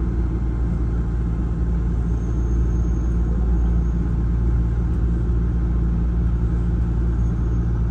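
Hankyu electric train heard from inside a car, a steady low rumble and hum as it rolls slowly along the station platform. A faint high whine comes in for a couple of seconds about two seconds in.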